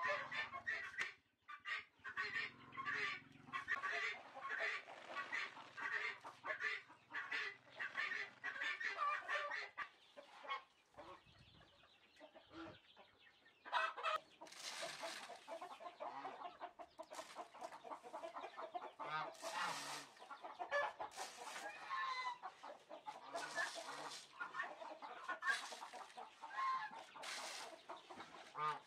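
A flock of chickens clucking and calling over and over, with a quieter lull about ten seconds in before the calling picks up again.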